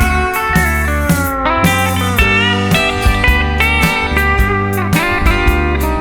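Instrumental break of a country song: a steel guitar lead with sliding notes over bass and a steady drum beat.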